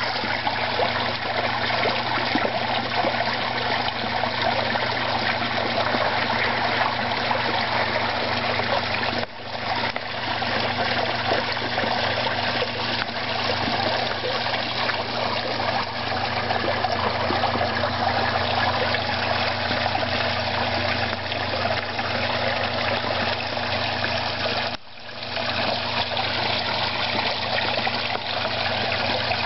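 Steady trickling and splashing of water running into a garden koi pond, with a low steady hum underneath.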